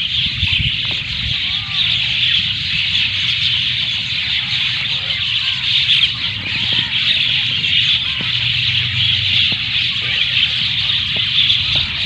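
A large flock of mynas chattering together in a dense, continuous chorus of calls, with a low rumble underneath.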